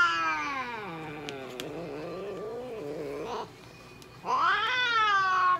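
Long-haired mixed-breed cat yowling while held for a nail trim: a long drawn-out yowl sliding down in pitch, then a second loud yowl about four seconds in that rises and falls. Two faint clicks come between the calls.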